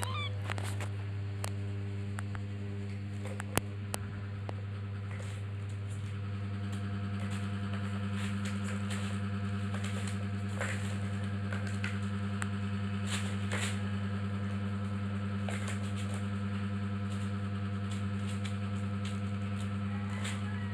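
Kitten playing at a plastic ball-track tower toy on a plastic sheet: scattered light clicks and rustles, with one sharper knock about three and a half seconds in. A steady low hum lies under it, a little louder from about six seconds on.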